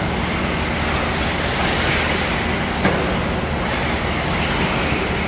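Small electric RC cars running around a track, their motors whining and revving faintly over a steady background din, with one sharp click about three seconds in.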